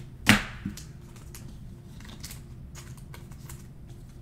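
Trading cards and packs being handled: a sharp snap about a third of a second in, then light, irregular clicks as cards are flicked and shuffled.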